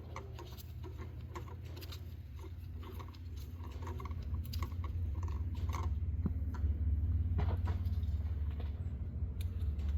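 Small scattered clicks and scrapes of a new spark plug being threaded by hand into the cylinder head, over a steady low hum that grows louder about four seconds in.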